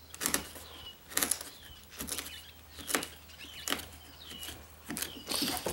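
Wood chisel scraping and paring wood out of a strike-plate pocket in a door jamb, in short strokes about once a second, some with a faint squeak.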